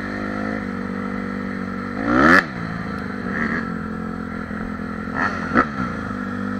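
Off-road engine running steadily at a constant pitch, with a loud rev that rises and falls about two seconds in and a shorter, sharper rev a little after five seconds.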